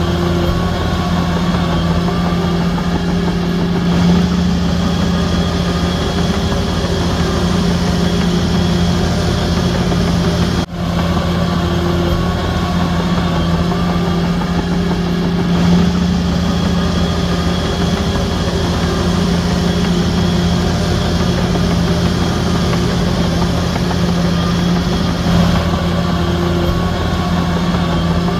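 Heavy diesel engine of a Shantui DH17C3 bulldozer running steadily under work, with a strong low drone that swells a little now and then. There is a momentary dip about ten seconds in.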